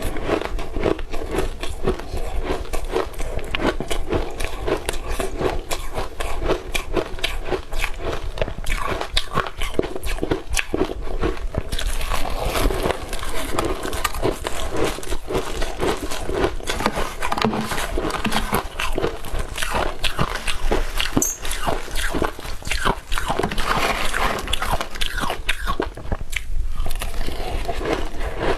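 Close-up crunching and chewing of hard ice: rapid crackling bites and the cracking of ice between the teeth, one after another.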